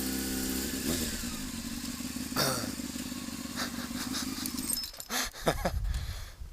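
Motorcycle engine idling with a steady note, its pitch easing down slightly in the first second. The steady note stops about five seconds in.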